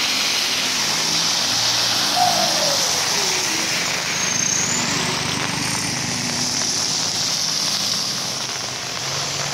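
Steady hiss of rain and tyres on a wet road, with the low hum of small vehicle engines underneath. About two seconds in, a passing vehicle drops in pitch.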